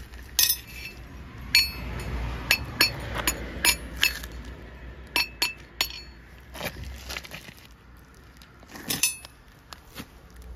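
Sharp metallic clinks of a farrier's steel hand tools against a donkey's horseshoe and its nails, about a dozen at irregular intervals. They come thickest in the first half, with one more near the end.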